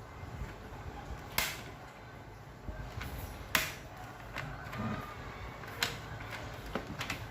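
Scattered sharp clicks and knocks of plastic air-cooler parts being handled and fitted together, four or five distinct ones with a cluster near the end, over a faint low hum.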